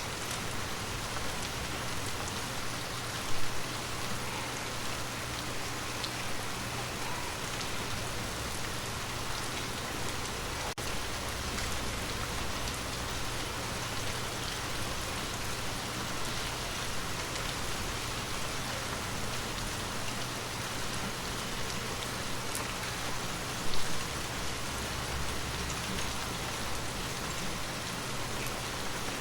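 Water drops tapping on glass: a steady patter of many small drips, with two louder taps, one a few seconds in and one about three-quarters of the way through.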